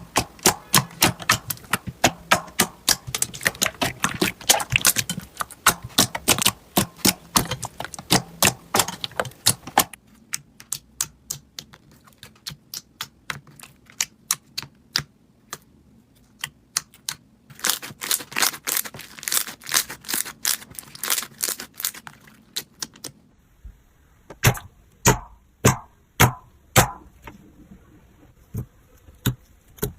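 Slime being squeezed and kneaded by hand, giving a rapid run of crisp clicks and pops like crunchy slime. The popping thins out about a third of the way in, turns dense again, then becomes sparser, single snaps after an abrupt change near the three-quarter mark.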